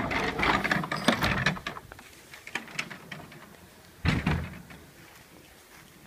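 A quick run of small mechanical clicks and rattles for about two seconds, a few scattered ticks, then a short thump with rustling about four seconds in.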